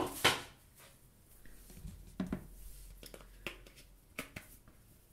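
Smartphone battery being laid into the open battery compartment of a Samsung Galaxy S4 Active and pressed into place: a few light plastic taps and clicks, the loudest right at the start.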